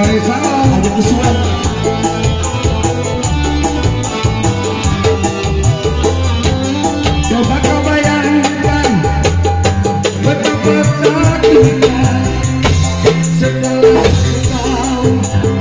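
Loud amplified live band music over a PA: keyboard-led backing with a steady bass beat and a quick shaker-like percussion pattern, with singing over it.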